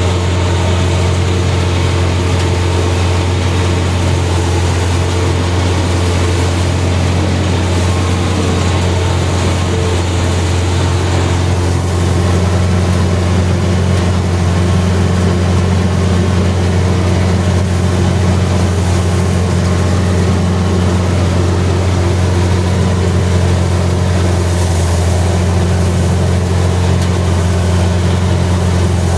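Combine harvester running steadily while cutting soybeans: a loud, even engine drone with a deep hum, growing slightly louder about twelve seconds in.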